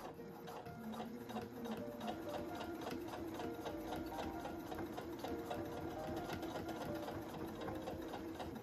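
Husqvarna Viking Jade 20 electronic sewing machine stitching steadily through several folded layers of thick denim, its needle strokes making an even, rapid ticking over the motor's hum.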